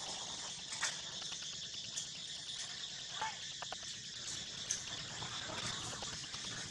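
Steady high-pitched insect chorus, with a few faint clicks and one brief faint squeak about three seconds in.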